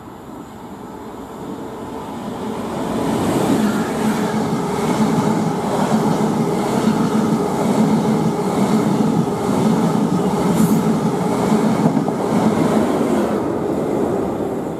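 Intercity passenger train of Mark 3 coaches passing through a station at speed. It builds up over the first few seconds, then runs loud and steady with a regular clatter of wheels over rail joints, and fades away near the end.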